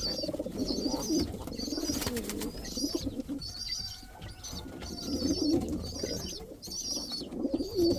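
Fancy pigeons cooing in a loft, with short high chirps repeating about once a second over the low coos.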